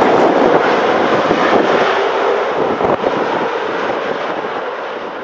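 Jet engine roar of a Boeing 747-400 freighter touching down and rolling out, slowly fading near the end, with wind buffeting the microphone.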